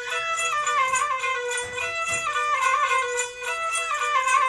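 Instrumental interlude of a traditional Marathi devotional folk song. A reedy melody instrument plays a tune of held notes stepping up and down over a steady, evenly repeating percussion beat.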